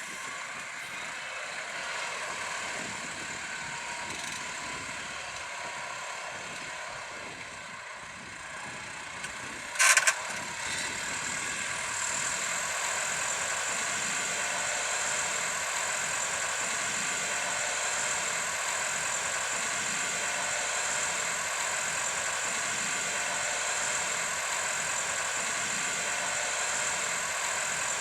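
New Holland T6.180's six-cylinder diesel engine running steadily under ploughing load. About ten seconds in there is a brief loud clatter, and from about twelve seconds on the engine is a little louder.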